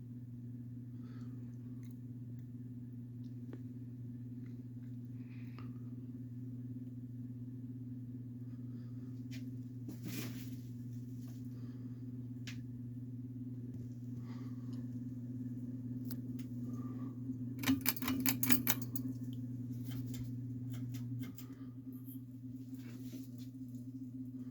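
SMC Twister UB-30 ceiling fan running with a steady electrical motor hum and scattered light clicks. About three-quarters of the way through comes a quick run of sharp clicks, the loudest part, and shortly after it the lower part of the hum drops away.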